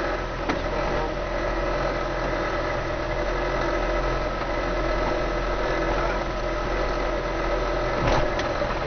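Land Rover engine running steadily at low revs while the vehicle moves slowly off-road. There is a short knock about half a second in and a louder clunk near the end.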